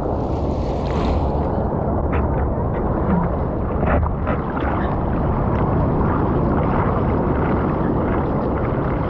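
Ocean surf and wind buffeting the microphone: a loud, steady rushing rumble of water, with a splash of hiss in the first second and a few small splashes later.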